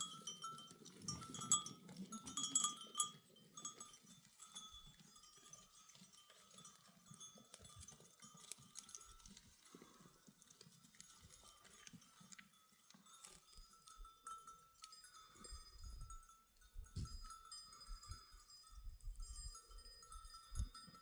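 Bells worn by a flock of goats and sheep tinkling faintly and irregularly, busiest in the first few seconds and again in the second half, with small clicks among them.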